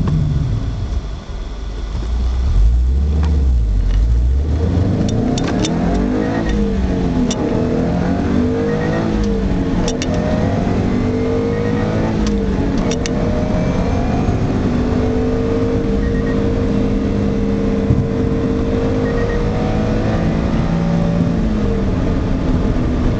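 Stock Subaru Impreza WRX STI turbocharged flat-four engine and exhaust, unmodified. The revs drop about a second in, the engine rumbles low, then rises and falls in pitch several times before holding a fairly steady note in the second half.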